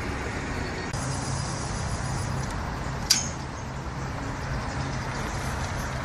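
Steady traffic noise with a low hum that comes and goes. A single sharp click with a short high ring about three seconds in.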